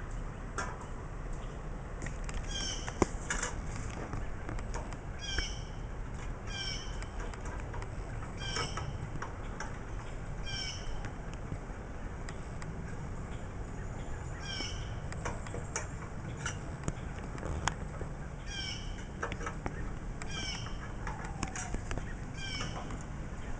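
Short, high chirping calls from a bird or small animal, repeating about once every one to two seconds, over a steady low rumble, with a few sharp clicks, the loudest about three seconds in.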